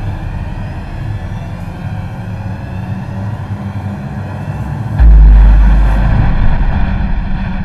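Logo-intro sound effect: a steady low rumbling drone, then a sudden deep boom about five seconds in that slowly fades away.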